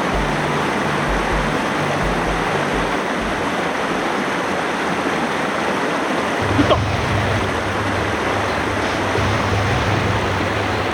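Mountain stream water rushing steadily over rocks, with a single short sharp tick about two-thirds of the way through.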